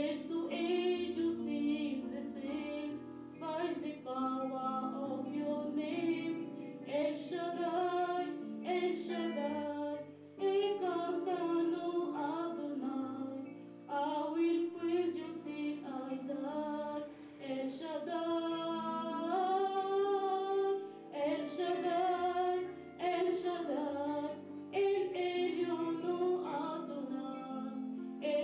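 A song sung with instrumental accompaniment: a voice carrying the melody over held low notes, with some long notes held, such as one about two-thirds of the way through.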